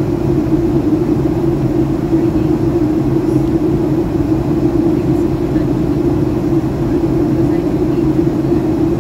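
Steady cabin noise inside a Boeing 757-200 on its descent into landing: an even rush of airflow with a low engine drone.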